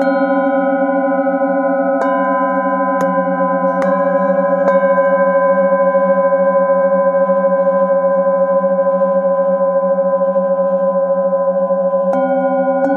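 Several brass singing bowls struck with a mallet, their overlapping tones ringing on steadily with a slow wavering beat. A run of light strikes falls in the first five seconds, then the bowls ring on alone until one more strike near the end.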